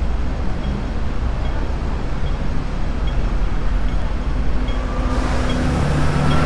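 Street traffic with a steady low engine rumble from a double-decker bus and other vehicles close by. Faint pips from a pedestrian crossing signal repeat a little faster than once a second. About five seconds in, the traffic noise grows louder and a rising whine sets in as a vehicle accelerates.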